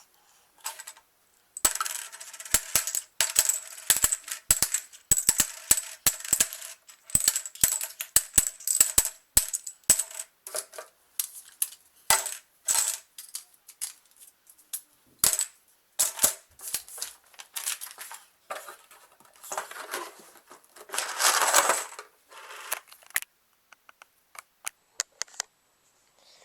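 Plastic Connect 4 discs clicking and clattering against one another as they are gathered up and dropped into the box: a long run of quick clicks, with a denser rattling clatter about twenty seconds in.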